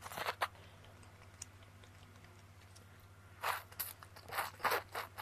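A person slurping and chewing wide flat noodles in chili oil: a quick burst of slurps at the start, then a run of several slurps from about three and a half seconds in.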